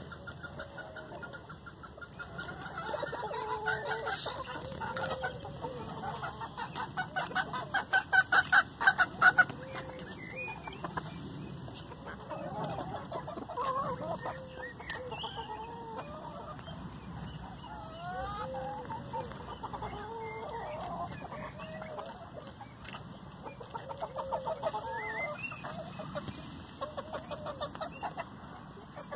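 Domestic hens clucking and murmuring as they peck at hamburger buns, with the loudest stretch, a quick run of pulsed calls, about seven to nine seconds in. Short high falling chirps repeat in the background.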